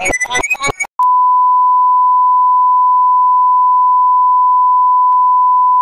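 Fast, jaunty music cuts off abruptly just under a second in. After a brief gap, a steady, unwavering 1 kHz test tone starts, the reference tone that goes with colour bars.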